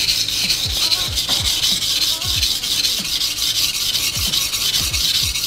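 Steel knife blade scraping back and forth over a coarse 220-grit Naniwa waterstone in steady, repeated strokes. It is coarse grinding of the whole edge, taking off much more steel than usual to remove a chip.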